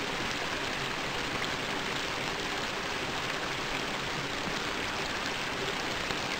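Creek water running over rocks, a steady even rush with no single splashes standing out.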